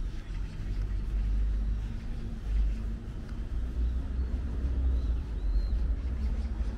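Low steady rumble of road traffic, heavier from about two seconds in, with a few faint, short high bird chirps.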